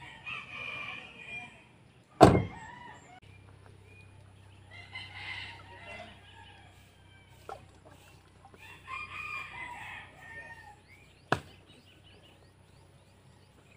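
Roosters crowing, three long crows spaced about four seconds apart. About two seconds in, the truck's cab door slams shut with a loud bang, the loudest sound here. Another sharp knock comes near the end.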